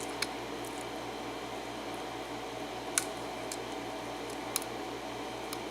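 A few faint, sharp metal clicks of a lock pick working the pins of a Baldwin five-pin cylinder lock under light tension, over a steady low hum.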